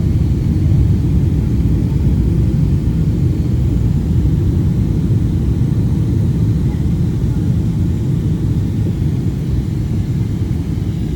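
Cabin noise inside a Boeing 777-300ER descending toward landing: a steady low rumble of its GE90 engines and the airflow over the fuselage.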